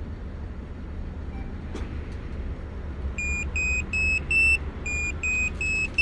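Remote-start car alarm beeping: a quick four-note rising chime of short beeps, played twice, starting about three seconds in, over a steady low rumble.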